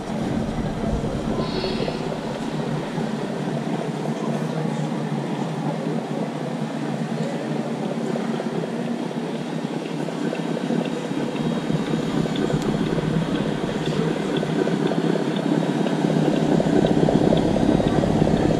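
Steady running noise of radio-controlled scale model trucks driving on a wooden floor, growing somewhat louder near the end.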